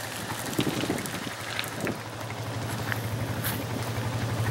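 An engine running steadily with a low pulsing hum that grows louder toward the end, with a few short sharp clicks over it.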